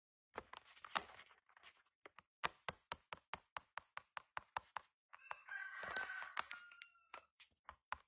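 A rooster crowing once, a call of about two seconds held on a steady pitch and dropping slightly at the end. Around it, a rapid, even run of sharp knocks, about five a second.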